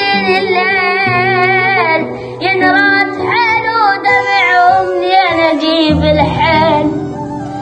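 A child singing long, wavering melismatic phrases with heavy vibrato over steady held accompaniment notes.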